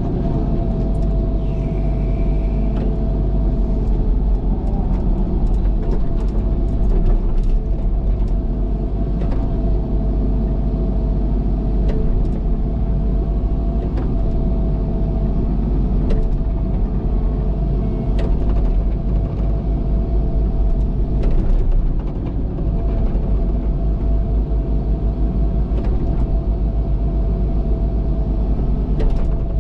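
Diesel engine of a heavy earthmoving machine running steadily, with scattered short clanks and knocks from the machine at work.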